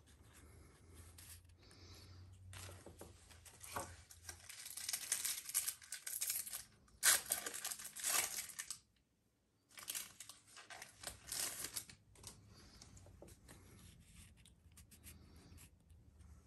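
A crinkly foil Pokémon booster pack wrapper being torn open and the trading cards inside sliding and shuffling against each other in hand, in irregular rustling bursts, the loudest about seven seconds in.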